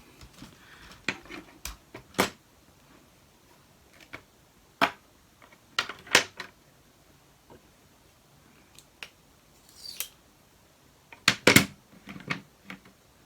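Plastic Lego Technic parts clicking and knocking as they are handled and set in place, in irregular sharp clicks, with the loudest cluster near the end.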